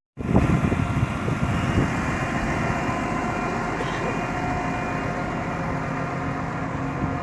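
Macedonian Railways class 711 diesel multiple unit's engine running steadily, a continuous mechanical drone with several held tones over a low rumble.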